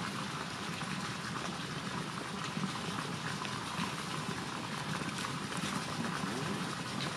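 Steady crackling rustle of damp leaves, twigs and leaf litter as hands pick through the undergrowth for small white wild mushrooms.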